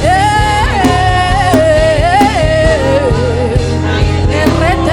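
Gospel worship music: a lead voice holds a wordless, wavering sung line over bass and a steady drum beat, about one strike every 0.7 seconds.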